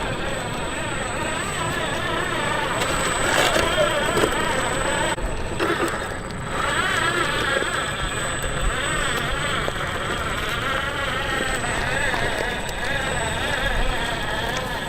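Electric RC4WD remote-control truck driving, its motor and gears whining in a pitch that rises and falls with the throttle, with two short breaks about five and six seconds in.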